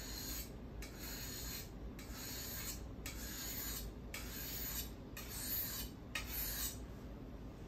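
Steel kitchen knife blade scraped back and forth across a wet 400-grit whetstone, a rasping stroke about once a second. The edge is being ground to raise a burr along the front of the blade.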